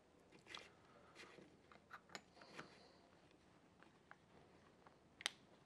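Faint clicks and taps of a drill bit being fed through a plastic dust extraction attachment into a cordless hammer drill's chuck, with one sharper click about five seconds in.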